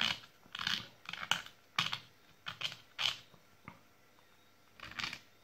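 Light, irregular clicks and taps as a bundle of NiCd cells from a cordless drill battery pack is handled, with fingers and cell ends knocking against each other. There is a short quiet stretch about four seconds in.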